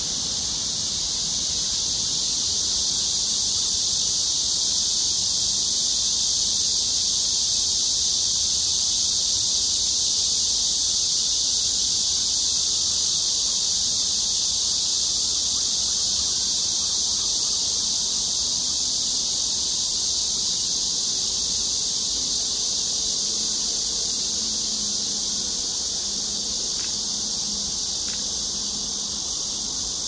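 Dense chorus of insects, a steady high-pitched buzzing that swells slightly a few seconds in and eases a little near the end.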